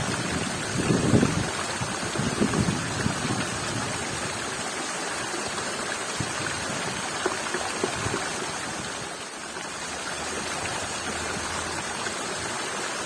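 Steady rushing of running water, like a stream, with some irregular low rumbling in the first few seconds.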